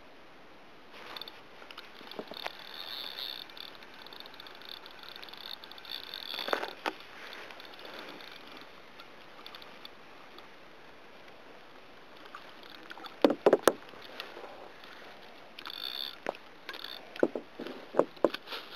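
Fishing reel being wound in, a fast fine ticking, followed by several sharp knocks and bumps from handling the rod and line on the plastic kayak.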